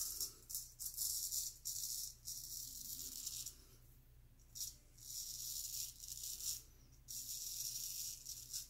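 Gold Monkey straight razor scraping through lathered stubble on the neck: a crisp rasp with each pass, in a series of long sweeping strokes, some over a second long, with short pauses between them.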